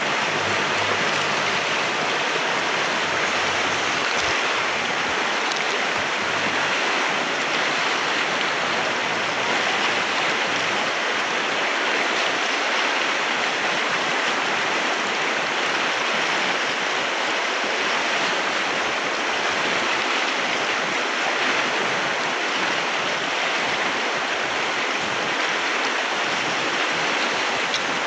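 River water rushing, a steady, even rush of flowing water.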